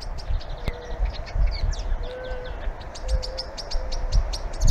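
Common blackbirds calling, an adult luring its fledgling to safety: a rapid, continuous run of short, sharp high calls. Low rumbles run underneath.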